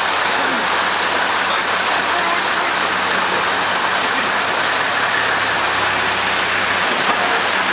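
Steady rushing noise like running water, with the low, even hum of a Toyota Land Cruiser's engine at a crawl as it edges across a timber plank bridge.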